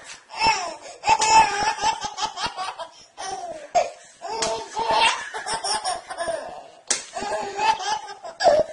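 A baby laughing hard in several fits, with short breaks between them.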